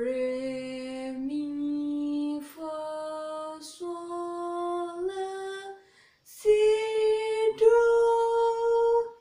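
A young woman singing a slow rising solfège scale unaccompanied, re, mi, fa, sol, la, si, do, each syllable held on its own note for about a second. After a short break the last two notes come louder, ending on the high do.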